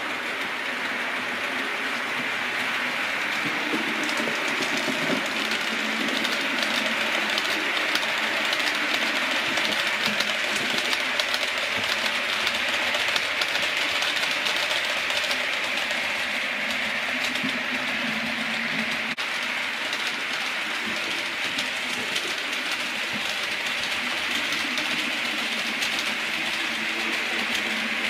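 A 4mm-scale (OO gauge) model train running past on the layout: a steady whir of its wheels and motor on the rails, with many small clicks as the wheels cross the rail joints.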